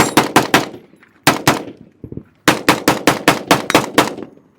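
Gun fired rapidly in three quick strings: a few shots at the start, a pair just over a second in, then a longer run of about nine shots, at roughly five or six shots a second.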